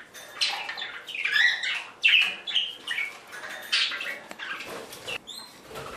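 Pet budgerigars chirping and chattering: a run of short, irregular high chirps and squawks several times a second.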